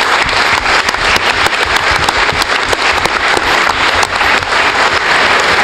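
Audience applauding, many hands clapping at once in a dense, steady patter.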